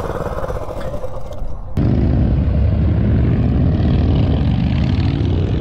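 Coleman mini bike's small single-cylinder engine running while riding, with wind rumble on the microphone. About two seconds in, the sound jumps abruptly to a louder, deeper rumble.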